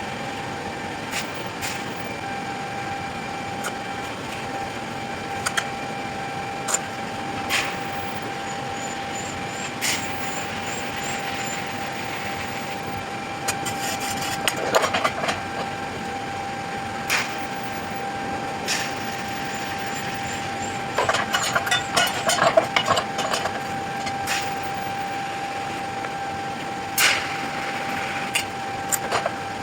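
A machine running with a steady whine, with scattered sharp knocks and two short spells of rattling, about halfway and about two-thirds of the way through; the whine cuts off at the end.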